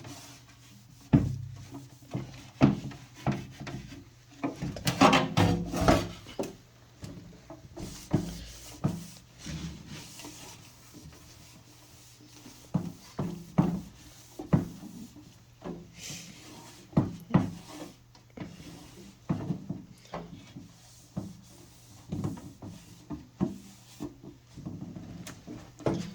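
Cloth wiping and scrubbing the plastic inside of an old refrigerator, in short bursts, with irregular knocks and clatters as parts of the fridge are handled.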